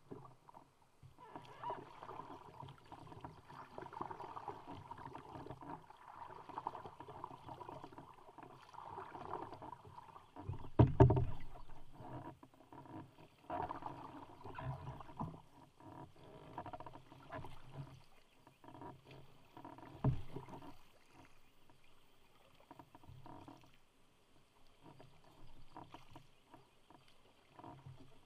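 Canoe paddle strokes: the blade dipping and pulling through the water with irregular splashes and drips. Two thumps stand out, the louder about eleven seconds in and a smaller one near twenty seconds.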